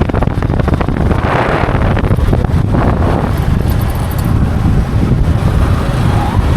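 Wind rumbling on the microphone over the steady running noise of a vehicle moving along the road.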